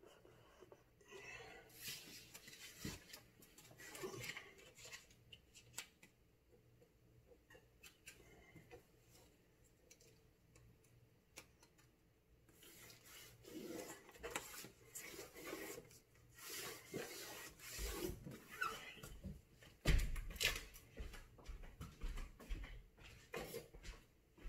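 Blue painter's tape being pulled off the roll and pressed and rubbed along the base of a cabinet: on-and-off rubbing and rustling, with a thump about twenty seconds in.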